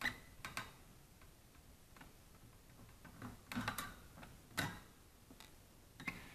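Scattered small clicks and light metallic knocks of a screwdriver working the screws of a power supply's sheet-metal cover while the cover is loosened and lifted off, a few sharper knocks near the start and around four seconds in.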